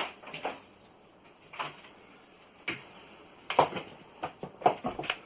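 Irregular clicks and knocks of small hard objects being handled, about seven sharp strokes, the loudest clustered near the end.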